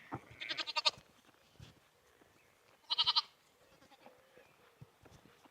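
Sheep bleating twice: a short wavering bleat about half a second in, and a louder one about three seconds in.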